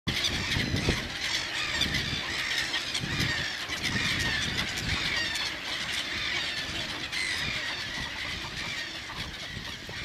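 Dense chorus of many birds calling over one another at a waterbird nesting colony: a constant tangle of short, overlapping high calls, with a low rumble underneath.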